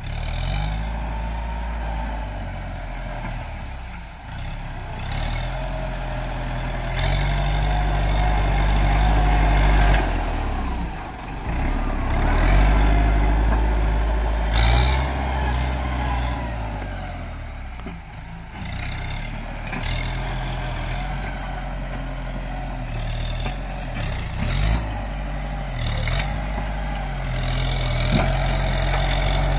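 Farm tractor's diesel engine working under load as its front blade pushes brush and leaf litter, the engine note rising and falling repeatedly with the load and throttle.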